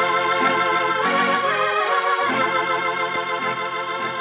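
Organ music playing sustained chords as a musical curtain cue opening the act, slowly growing quieter toward the end.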